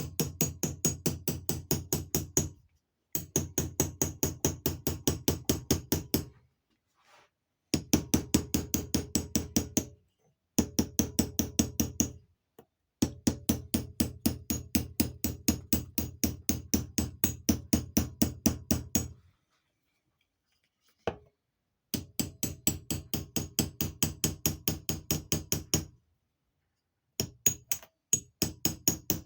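Hammer tapping a small square punch against the metal housing of a vacuum advance unit, in quick steady runs of about five or six light blows a second. The runs stop and start with short pauses between them.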